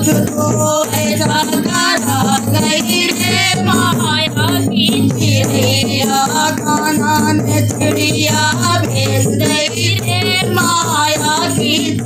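Women singing a Hindi Krishna bhajan in folk style, accompanied by a dholak drum and a rattling hand percussion.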